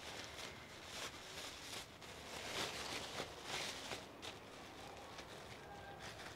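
Thin plastic bag crinkling and rustling as it is handled and opened by hand, in irregular bursts that are busiest around the middle.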